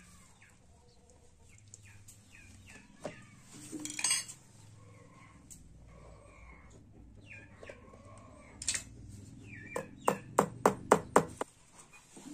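Small metallic clinks and a brief scrape as a thin metal point and bare hands fit the hardboard backing into a picture frame, ending in a quick run of about seven sharp taps near the end. Birds chirp in the background.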